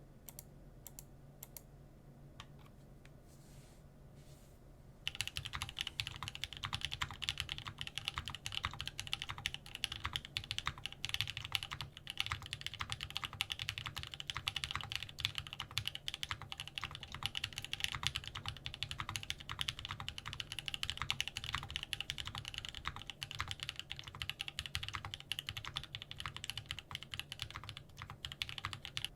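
Fast, continuous typing on a wilba.tech Thermal mechanical keyboard fitted with ABS keycaps, a dense clatter of keystrokes. A few isolated key presses come first, and the steady typing starts about five seconds in.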